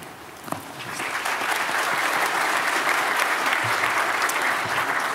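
Audience in a conference hall applauding, the clapping swelling in about a second in and then holding steady.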